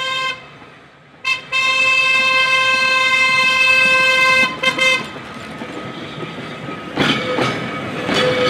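Diesel works locomotive MER No. 34 'Maria' sounding its single-note horn: a blast that cuts off just after the start, a short toot about a second in, then a long blast of about three seconds ending in a couple of quick toots. From about seven seconds in, the locomotive passes close, its engine running and wheels clattering over the rail joints.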